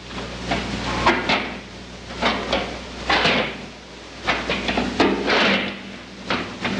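A string of irregular knocks and bangs, one or two a second, some with a short ringing tail, over a low steady hum.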